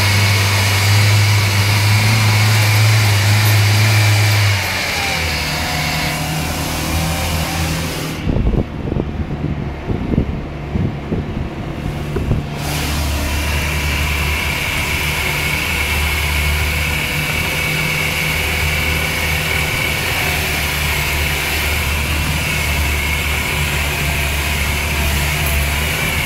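Land Rover Series III 109 Station Wagon's petrol engine running as it drives, heard from inside the cab, with the engine note dropping about four seconds in. For a few seconds in the middle the steady note gives way to irregular knocks and thumps, then the engine runs steadily again.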